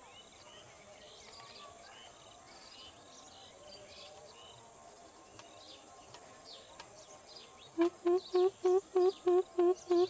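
Greater coucal giving its deep, hooting 'coop-coop-coop' call: a series of evenly spaced low hoots, about three a second, starting near the end. Before it, small birds chirp faintly over a steady outdoor background.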